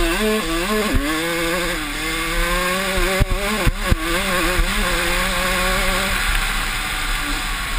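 Yamaha YZ85 two-stroke single-cylinder engine racing at high revs from on board the bike, its pitch wavering with the throttle and dropping about a second in, then held high and steady for several seconds. A few sharp knocks come around the middle.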